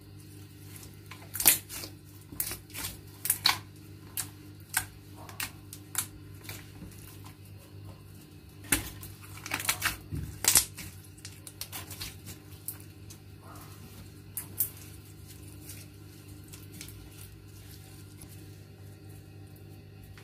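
Clear slime squeezed and stretched by hand, giving an irregular run of sharp clicks and pops that is thickest in the first half and stops after about fifteen seconds, over a steady low hum.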